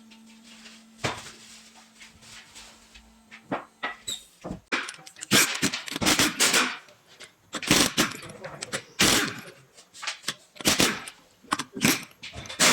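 A series of irregular knocks, clatters and scrapes, some sharp and loud, after a steady low hum that stops about a second in.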